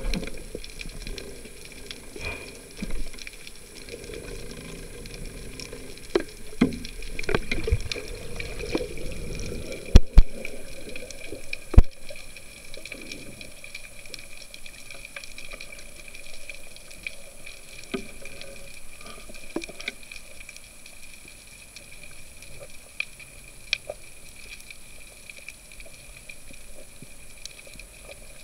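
Underwater sound picked up through a speargun-mounted camera housing: a low rush of water with scattered small clicks. Three sharp knocks come about ten to twelve seconds in.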